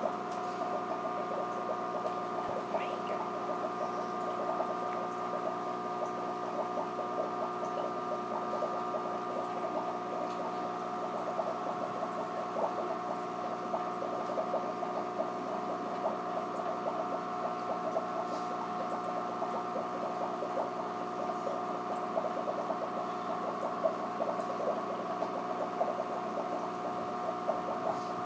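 Aquarium equipment running: a steady hum of several tones with a fine crackle over it.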